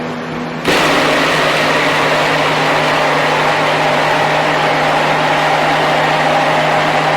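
Electric blender switched on about a second in and running steadily with a constant motor hum, mixing mica-coloured soap batter of oils and lye water.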